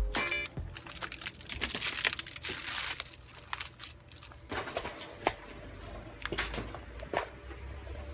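Crinkling and rustling of handled material, with scattered light clicks and knocks at an irregular pace.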